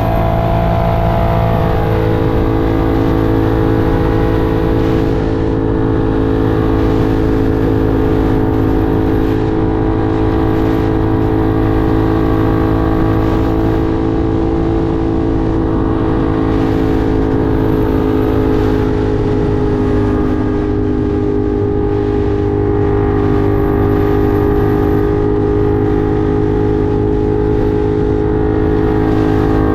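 Ducati Monster 1200 R's L-twin engine running under load at steady riding revs, with wind noise. The revs drop about two seconds in, then hold nearly steady with only slow rises and falls.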